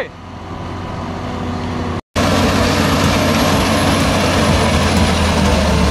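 Heavy farm tractor engines working under load. First a tractor pulls a loaded forage wagon through mud. After a brief cut to silence about two seconds in, a louder tractor running a seed drill across a field takes over, with a steady low drone and a faint high whine that slowly falls.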